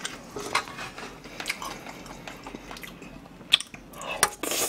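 Close-miked eating sounds: moist chewing of fried rice with scattered small mouth clicks, and a louder burst near the end as a spoonful goes into the mouth.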